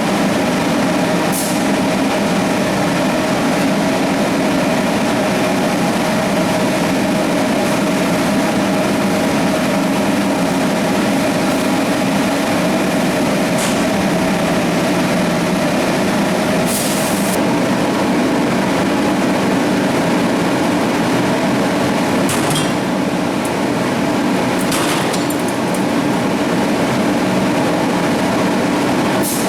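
A motor-driven machine running steadily with a loud droning hum made of several steady tones. Short hissy bursts come through every few seconds.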